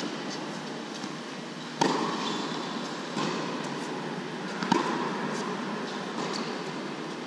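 Tennis racquet strikes on the ball during a rally in an echoing indoor hall: two loud, sharp pops about 1.8 s and 4.7 s in and a fainter one about 3.2 s in. Each pop carries a short echo, over a steady background hiss.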